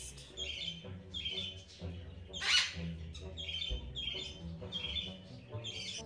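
Parrot giving short, high chirping calls about twice a second, with one louder harsh squawk about two and a half seconds in.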